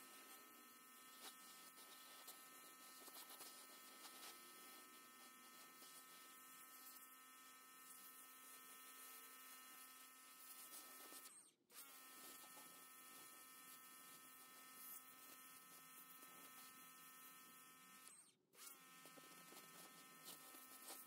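Pressure washer running faintly: a steady motor hum with the hiss of the spray. It cuts out twice for a moment, about halfway through and again near the end, and each time the motor comes back with a rising whine as the trigger is pulled again.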